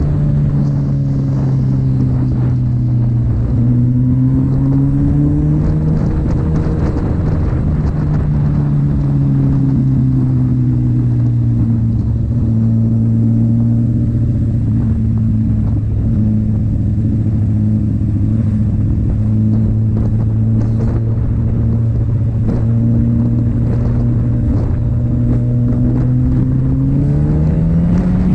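Sport motorcycle engine running at steady revs while riding. Its pitch eases down in the first few seconds, holds level, then rises near the end as the throttle opens.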